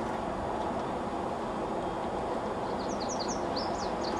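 Steady background noise, with a small bird chirping a quick series of short, high notes starting a little under three seconds in.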